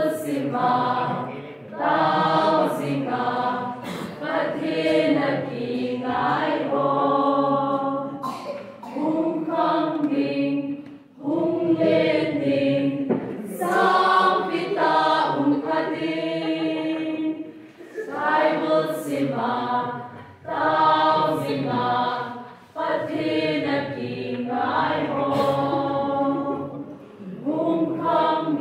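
A mixed group of young women and men singing a song together as a choir, in sung phrases a few seconds long with short breaks for breath between them.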